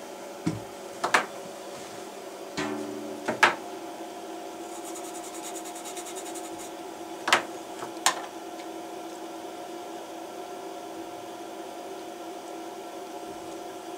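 A few sharp clicks and taps of small tools and a circuit board being handled on a workbench, spread through the stretch, over a steady electrical hum.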